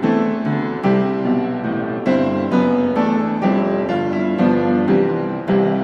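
Background piano music: notes and chords struck about once or twice a second, each ringing and fading.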